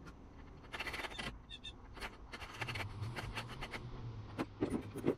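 Hand deburring tool scraping the burr off the cut end of a copper refrigerant line: light irregular metal scrapes and clicks, with a longer scrape about a second in. The sharp edge is being removed so it won't spoil the flare.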